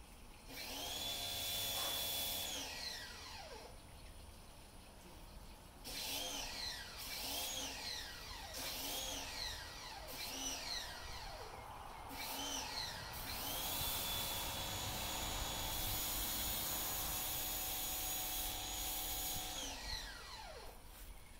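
Small high-speed electric power-tool motor, like a drill: it spins up and runs for about two seconds, then is triggered in a quick series of short bursts that rise and fall, then runs steadily for about six seconds before winding down near the end.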